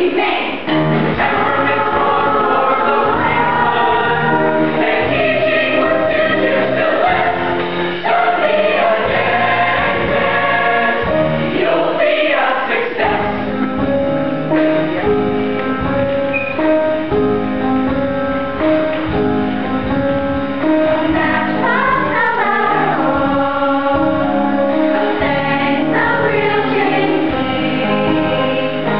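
Youth show choir of boys and girls singing a show tune together in a live stage performance.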